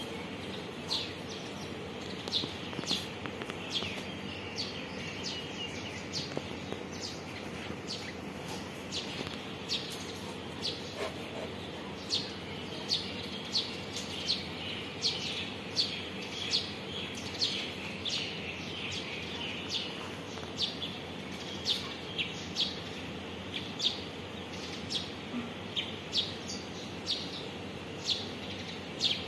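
A small bird chirping over and over in short, sharp, high chirps, about one or two a second and more often in the second half, over steady background noise.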